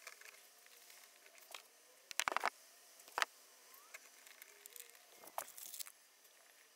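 Hands working speaker wire and plastic trim panels under a car's rear parcel shelf: scattered clicks and rustles, loudest as a quick run of sharp clicks about two seconds in and a single sharp click a second later.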